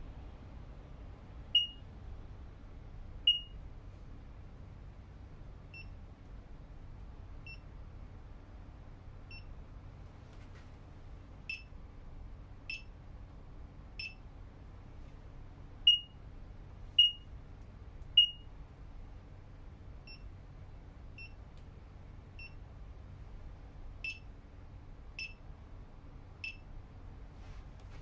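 Barcode scanners giving short, high good-read beeps, one after another, as each reads a QR code. There are about eighteen beeps a little over a second apart. Some are much louder than others, and some have a slightly different tone, since they come from different scanners.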